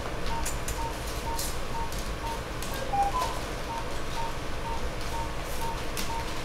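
Operating-room pulse oximeter beeping at a steady pitch about twice a second, each beep marking the child's pulse, over a steady room hum, with a few faint clicks.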